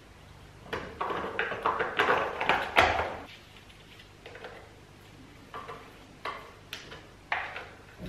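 Metal clinking and rattling of a chainsaw's bar and Oregon PowerSharp chain being fitted by hand, busiest over the first three seconds, then a few single light clicks.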